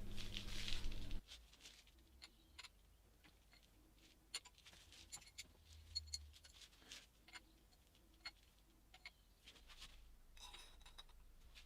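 A steady hum that cuts off suddenly about a second in, then faint, scattered clicks and light metallic taps of small engine parts being handled.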